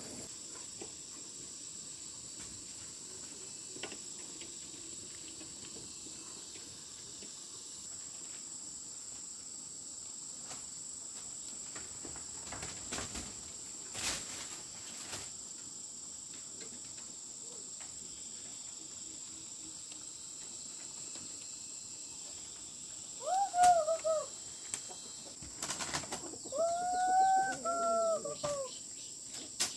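Steady high-pitched drone of insects, with a few faint knocks. Near the end come two loud, arching calls that rise and then fall, a short one and then one of about two seconds.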